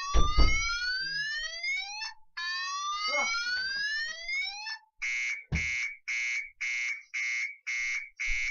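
Electronic fire alarm sounding: two rising whoop sweeps, then from about five seconds in a pulsing beep at about two beeps a second. Several loud thumps, the loudest right at the start.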